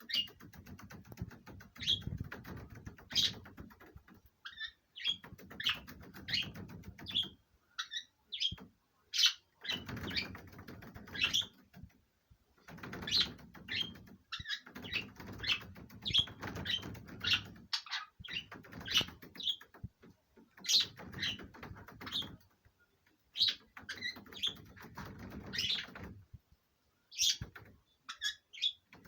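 A pair of budgerigars chattering in courtship: many quick high chirps and warbles in irregular bursts broken by short pauses, with a low rustle underneath.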